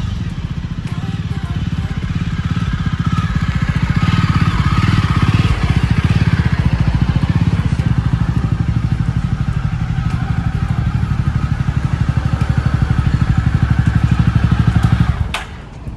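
Jawa 42 motorcycle's single-cylinder engine running as the bike is ridden up and brought to a stop, an even low pulsing exhaust note that grows louder as it nears. It is switched off about a second before the end, and the sound cuts out suddenly.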